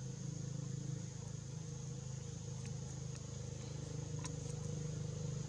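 Steady outdoor ambience: a low engine-like hum with a constant high-pitched insect drone over it, and a few faint clicks in the second half.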